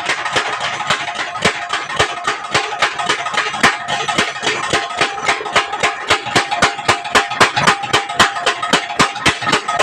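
Blacksmith's hammer striking metal on an anvil in a quick, steady rhythm, about four blows a second, with the metal ringing between blows.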